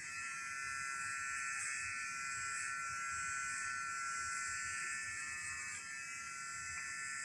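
Electric hair clippers running with a steady high buzz while cutting a child's hair.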